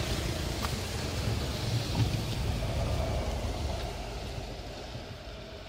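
Rumble of a passing vehicle, dying away steadily over the second half.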